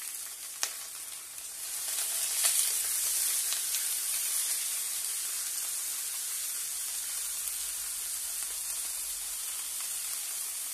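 Pieces of tuna sizzling as they fry in a grill pan, a steady frying hiss. A few light clicks of handling come in the first two or three seconds.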